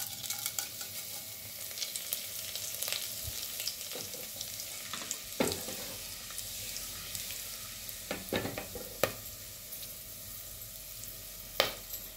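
Whole spices, bay leaves among them, sizzling and crackling in hot oil in a pressure cooker as the tempering for biryani begins. They are stirred, with a few sharp knocks of the spoon against the pot in the second half.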